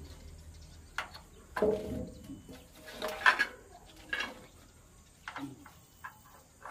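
Metal fuel-tank mounting strap knocking and scraping against a truck's metal fuel tank as it is swung into place, several separate clanks with the loudest about three seconds in.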